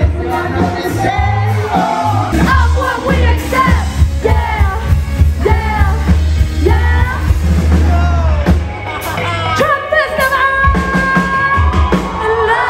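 A live band playing a cover song with a singer over a steady bass line; a long note is held near the end.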